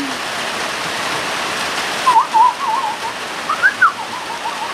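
Warbling, beeping R2-D2-style whistles start about two seconds in and rise once to a higher chirp. Under them runs a steady hiss.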